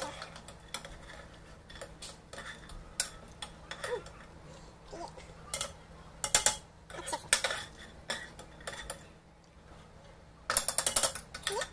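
Metal slotted spoon scraping and clinking against a frying pan as fried nuts are scooped out and dropped onto rice, in short bursts of clatter with scattered taps between, the longest burst near the end.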